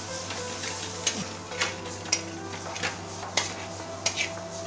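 King prawns and masala sizzling in a hot tawa while a long metal spoon stirs them round the pan, scraping against the metal several times.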